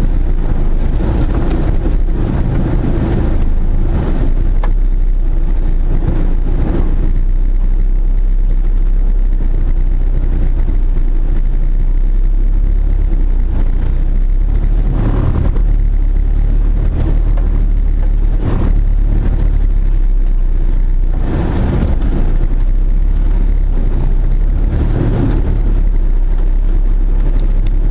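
Engine and drivetrain of a Toyota 4x4 crawling along a snowy forest track, heard from inside the cab as a steady low drone, with a few thumps in the second half as it bumps over the ruts.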